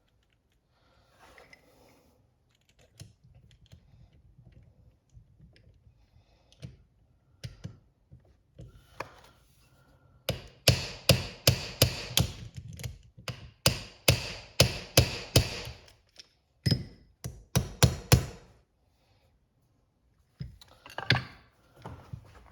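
Hammer blows on a bushing driver, tapping a new bushing into a 4R75W automatic transmission: after some quiet clinks of parts being handled, a run of about twenty sharp metallic strikes at two to three a second, with a brief pause partway through.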